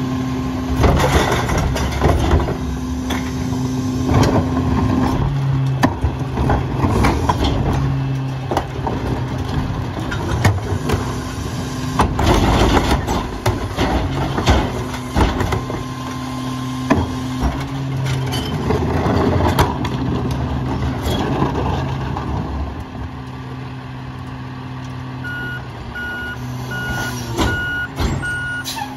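McNeilus rear-loader garbage truck running with a steady low engine hum, under repeated bangs and clatter as wheeled carts are tipped and knocked against the hopper and trash drops in. Near the end a reversing beeper starts beeping steadily.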